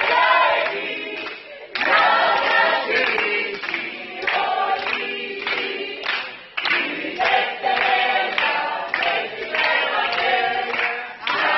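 A group of voices singing together without instruments, with hand claps keeping time.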